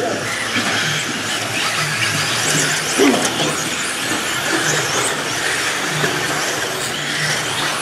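Several electric 1/10-scale RC buggies racing on a clay track. Their motors make a steady din of overlapping high whines that rise and fall as the drivers work the throttle.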